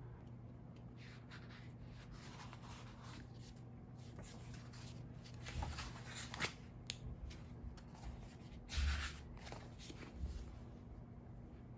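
Paper rustling and soft handling noises as a paperback book is picked up, opened and its pages turned, with a few soft bumps; the loudest rustle comes about nine seconds in.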